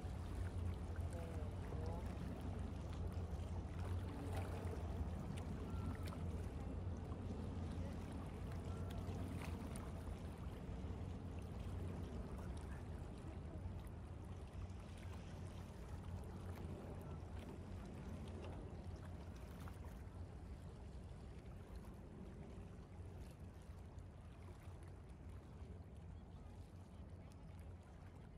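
Outdoor waterfront city ambience: a steady low rumble under a soft wash of noise, with faint distant voices in the first half. It grows slowly quieter toward the end.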